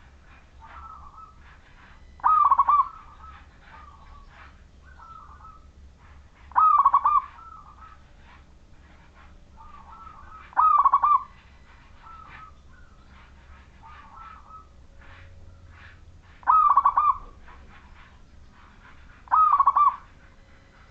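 Zebra dove (perkutut) in full song, giving its rolling, bubbling coo phrase five times a few seconds apart, with fainter coos between the loud phrases.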